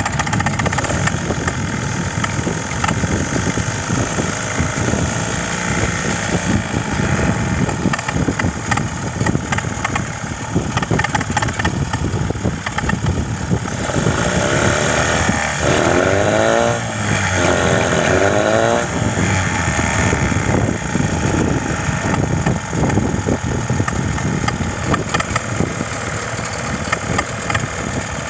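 Mercury 9.9 outboard motor idling with a knock: a steady run with sharp irregular ticks all through. A little past halfway a wavering tone rises and falls over it for a few seconds.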